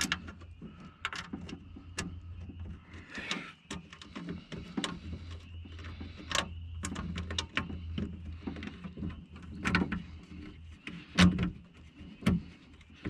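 Irregular clicks, taps and knocks of window motor and regulator parts being handled and fitted inside a car door, over a low steady hum.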